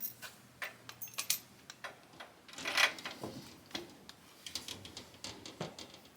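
Irregular light clicks and ticks of a threaded-stem caster being fitted into a mechanic's creeper frame, with one louder, longer noisy stretch about two and a half seconds in.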